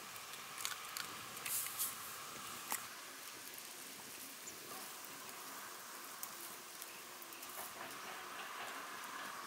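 Faint, steady hiss of a clay pot of broth simmering over a wood fire, with scattered soft ticks and pops, a few sharper ones in the first three seconds.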